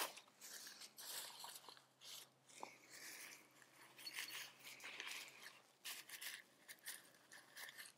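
Faint, irregular rustling and scraping as a tent's guy line and nylon rain fly are handled and tensioned, with a short click right at the start.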